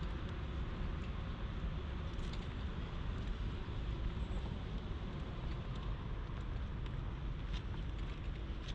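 Steady outdoor background noise with a low rumble and a few faint ticks.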